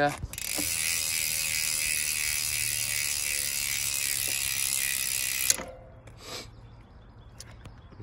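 DT Swiss 240S rear hub's 54-point ratchet freehub buzzing steadily as the wheel is spun, cutting off suddenly about five and a half seconds in.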